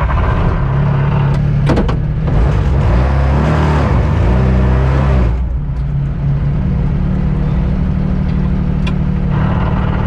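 Toyota GR Yaris AP4 rally car's turbocharged engine pulling hard as the car sets off, its note rising and shifting through the gears. About five seconds in it drops back to a steadier, lower note.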